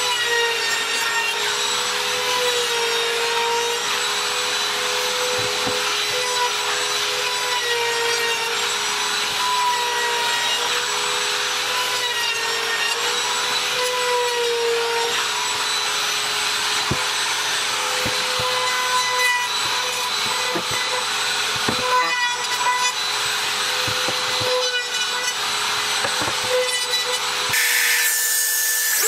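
Compact trim router running with a steady high whine as its bit cuts along the edge of a solid cedar board. Near the end the sound cuts abruptly to a different motor with a rising whine.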